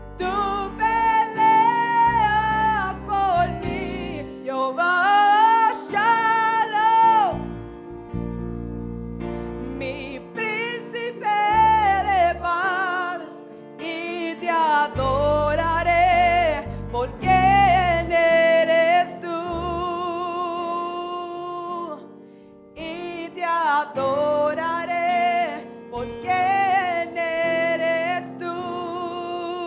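Slow worship song: a singer holding a wavering melody with vibrato over sustained low accompaniment chords.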